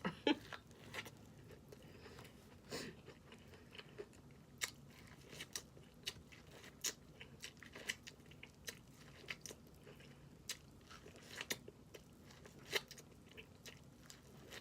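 Close-miked mukbang eating: quiet chewing and smacking, with many short, sharp clicks at an irregular pace.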